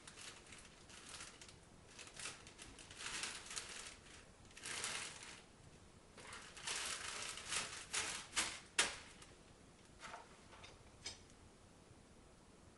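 Someone rummaging through pantry shelves: packaging and items rustling and crinkling in irregular bursts, with a sharp knock of an object about nine seconds in and a few lighter clicks after it.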